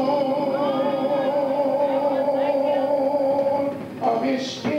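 A man singing gospel into a microphone, holding one long, slightly wavering note for nearly four seconds. It breaks off near the end with a short breathy sound before the singing goes on.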